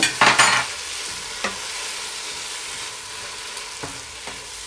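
Onion-tomato masala with green chillies, mint and coriander sizzling in oil in a pan while it is stirred, with loud spatula scrapes in the first half second and a few shorter scrapes later.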